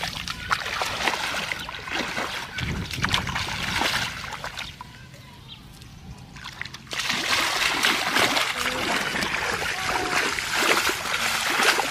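Barefoot footsteps splashing through shallow muddy floodwater, step after step. The splashing dies down for about two seconds near the middle, then comes back suddenly louder and denser.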